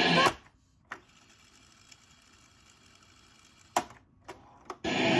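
Cassette transport piano keys on a Panasonic RX-5150 boombox clicking as they are pressed. Playback through the boombox's speakers cuts off a moment in, and a click follows about a second in over a low hiss. A sharp click with two lighter ones comes near four seconds in, then playback resumes briefly near the end and stops again.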